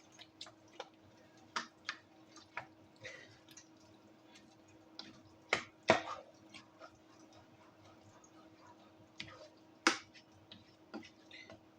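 Scattered sharp pops and ticks of food frying in hot oil, irregular, with two louder pops about six and ten seconds in, over a faint steady hum.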